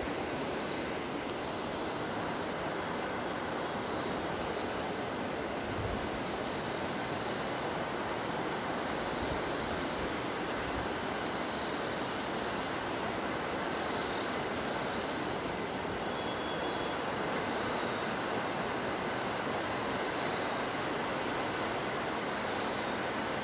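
Steady rushing of the fast-flowing Bhagirathi river, an even wash of water noise that does not let up.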